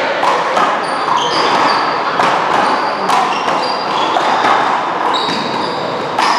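A one-wall handball and paddleball rally: sharp smacks of the small rubber ball off hands, a paddle and the wall, about one a second, the loudest near the end. Sneakers squeak briefly on the court floor between the hits.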